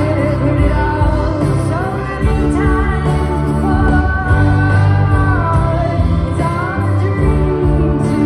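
Live band playing a mid-tempo song over the PA, recorded from the audience: drums, bass and guitars, with a sung melody on top.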